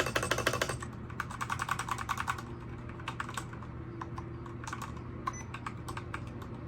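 Typing on a BOYI WK68 68-key mechanical keyboard with soft yellow switches and XDA keycaps: a quick run of keystrokes in the first second, then key clacks coming more scattered.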